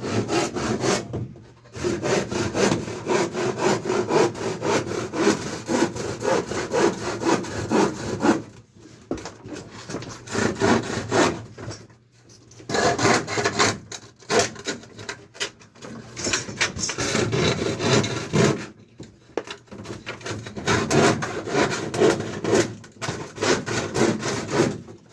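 Hand saw cutting through wood in quick back-and-forth strokes, in several runs broken by short pauses.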